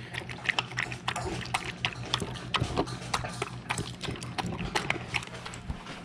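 A dog eating soaked kibble fast from a stainless-steel bowl: a rapid, irregular run of wet chewing smacks and clicks against the metal.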